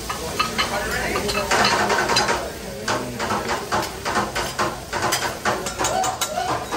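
Metal spatula and scraper working a hot steel teppanyaki griddle: a quick run of sharp metallic clicks, taps and scrapes, with a louder rush of sizzling about a second and a half in.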